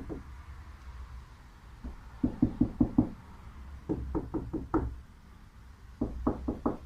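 Knuckles rapping on a Sprinter van's metal body panel in three quick runs of about five knocks each. The knocks sound dull because the panel is backed with expanding foam, which deadens the metal.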